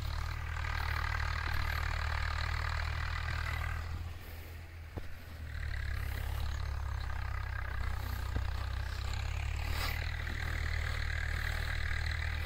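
Motorcycle engine running while riding across sand, with a low rumble of wind on the microphone. It eases off briefly about four seconds in, then carries on steadily.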